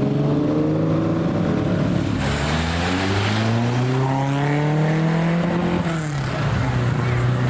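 Lamborghini Countach V12 engine pulling away. Its note holds steady, climbs for a few seconds as it accelerates, then drops back sharply to a steady lower note near the end.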